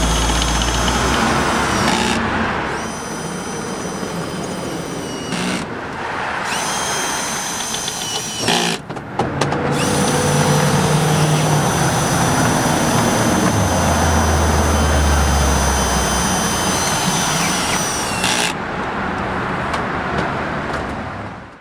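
Cordless drill/driver whining in several long runs that stop and start, over a steady bed of street traffic with a low vehicle rumble near the middle.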